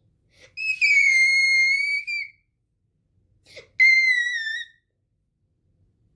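A young girl's very high-pitched squeals, twice: a long one, then a shorter one, each sliding slightly down in pitch.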